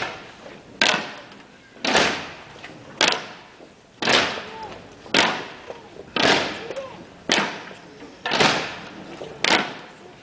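Slow, evenly spaced strikes, about one a second, marking the pace of a religious procession's float; each hit is sharp and rings out briefly in the street.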